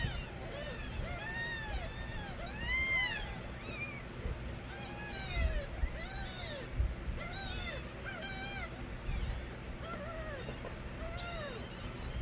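Several kittens meowing loudly, one rising-and-falling cry after another at about one a second, the calls sometimes overlapping.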